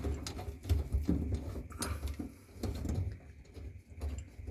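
Small irregular clicks and scraping of the garbage disposal mounting ring's screws being turned by hand, mixed with low handling thumps.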